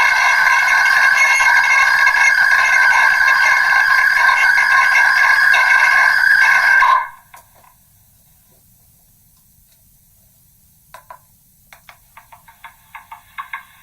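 Megaphone playback of a voice recording re-recorded many times over, worn down into a loud steady drone of ringing tones that cuts off suddenly about halfway. A few seconds of low hiss follow, then clicks and a run of quick short pulses near the end.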